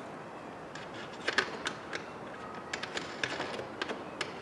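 Scattered light clicks and knocks of plastic and metal as a hand works the door mirror and its mounting inside a car door, the sharpest a little over a second in and a quicker cluster near the end.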